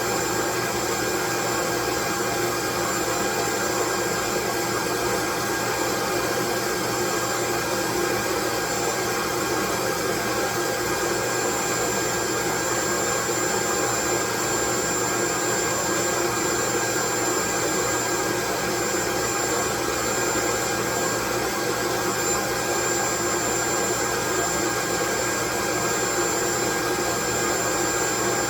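Loud, steady white noise that never changes, with a few faint steady whistling tones running through it, like the rush of an appliance motor.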